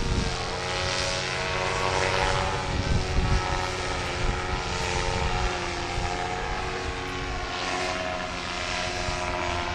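Paramotor engine and propeller running steadily as the pilot climbs away after take-off, with gusts of wind rumbling on the microphone.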